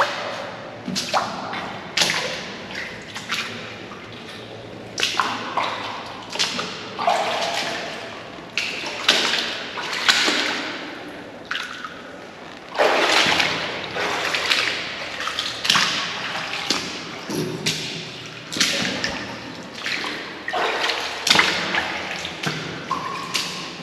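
Boots wading through shallow standing water, each step a splash and slosh, irregular and about one every second or two.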